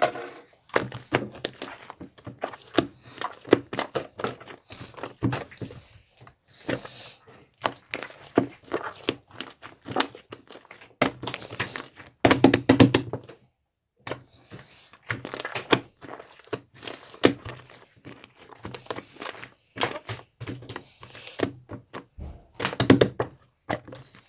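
Slime being squeezed, stretched and poked by hand, giving a rapid, irregular run of wet clicks and small pops.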